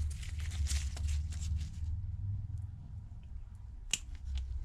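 Faint crinkling and light ticking as thin adhesive tape is handled and pressed onto a tablet's frame, with one sharp click about four seconds in, over a low steady hum.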